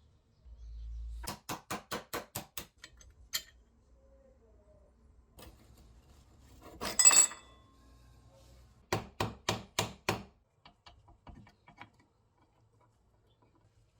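Metal parts and hand tools clinking. There is a quick run of sharp metallic clicks, about five a second, then a louder clatter about halfway through, then another run of clicks.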